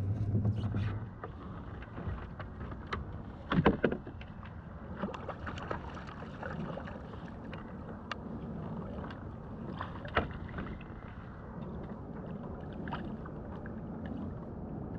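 Knocks and clicks of fishing gear being handled on a plastic sit-on-top kayak while a fish is played and a landing net is readied, with two louder knocks about 4 s and 10 s in, over steady low background noise.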